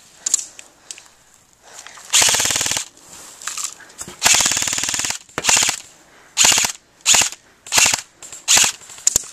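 Airsoft electric rifle (AEG) firing on full auto: two longer bursts of rapid shots, each under a second, then a string of short bursts a little under a second apart.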